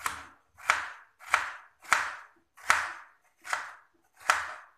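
Kitchen knife chopping stacked raw potato slices into thin strips on a plastic cutting board. There are seven steady strokes, about one and a half a second, each a sharp knock that fades quickly.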